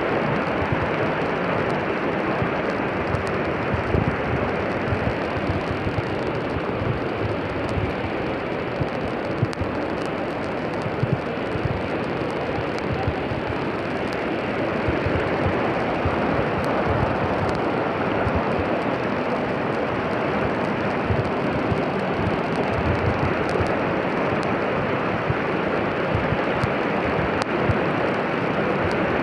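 Floodwater rushing steadily along a flooded street, an even rushing noise with a low, uneven rumble underneath.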